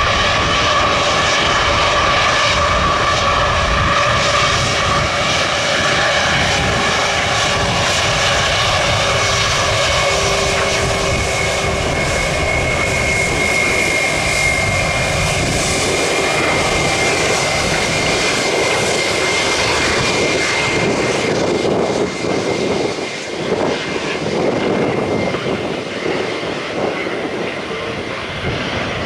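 Airliner jet engines running loud and steady with a high whine. The sound lessens and wavers from about three-quarters of the way through.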